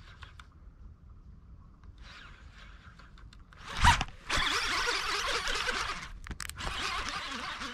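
A fishing reel cranked fast in a steady zipping whir as a hooked fish is reeled in. A sharp knock comes just before the cranking starts, about four seconds in, and the whir breaks off briefly a little after six seconds.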